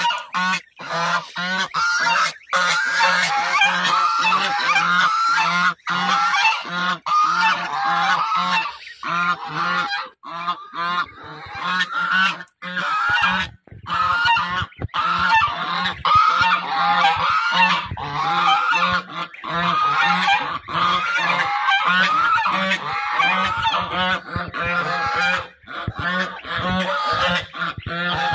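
A flock of domestic geese honking continuously, many loud calls overlapping with hardly a pause. The geese are agitated, calling with necks stretched low in defence of their goslings.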